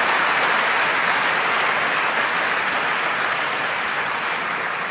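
A large audience applauding: dense, steady clapping that eases off slightly toward the end.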